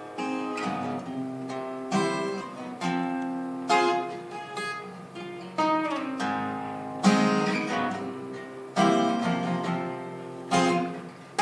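Acoustic guitar playing the introduction of a song: chords struck about once a second and left to ring out.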